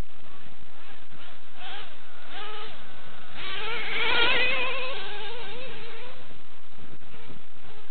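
Traxxas Revo RC truck's Dynamite .28 two-stroke nitro engine buzzing at high revs, its pitch rising and falling as the throttle is worked, loudest about four seconds in as the truck passes close.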